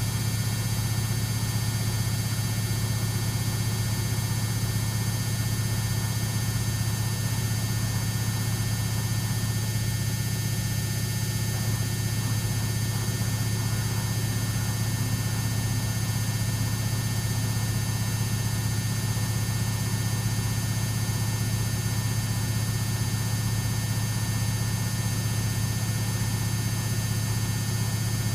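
Samsung WF6700 front-loading washing machine with a brushed AC motor spinning at a steady speed in its final spin, a constant low hum with a faint whine above it.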